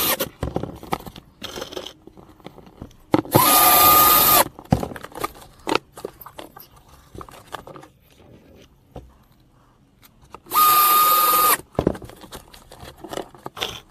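Cordless drill-driver driving screws through perforated metal pipe strapping into wooden boards, fixing insulated pipes down. Two bursts of steady motor whine, about a second and a half long some three seconds in and about a second long near eleven seconds in, with handling clicks between.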